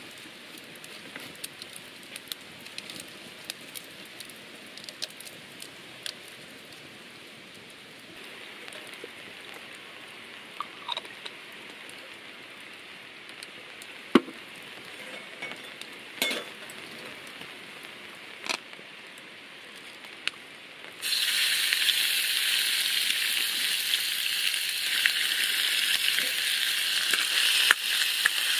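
Sliced pork is dropped into a hot oiled wok over a wood fire about three quarters of the way in and starts sizzling loudly and steadily. Before that there is a quieter bed of light rain and fire crackle with scattered clicks and knocks.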